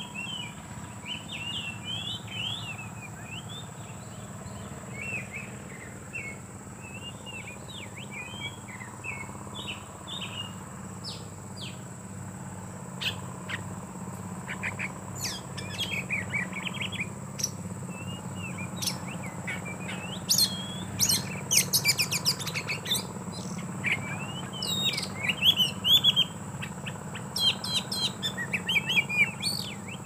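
Oriental magpie-robins (kacer) singing and calling: varied whistled warbling phrases at first, then louder, sharper calls and chatter from about a third of the way in, loudest in the second half.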